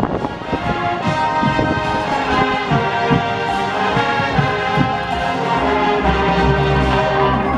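Marching band brass playing held chords, with percussion hits. A deep low note comes in about six seconds in.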